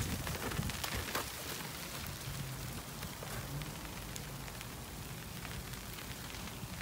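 Snow falling on an umbrella's fabric canopy: a steady hiss with scattered light ticks of flakes striking it.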